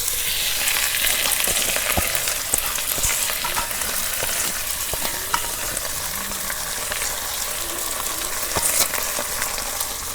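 Drained basmati rice sizzling as it fries in hot soybean oil with onions and whole spices in a karahi, stirred with a spatula that scrapes against the pan in scattered clicks. This is the rice being toasted in oil before the water goes in for biryani.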